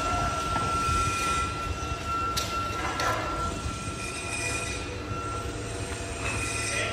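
Steady roar of foundry furnaces and their blowers, with a low rumble and a steady high whine, while molten metal is carried in a ladle.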